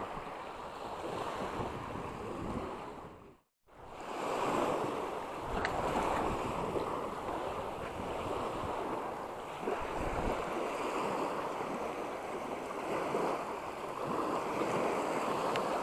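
Shallow surf washing up and draining back over a sandy beach, a steady rushing wash. The sound cuts out completely for a moment about three and a half seconds in.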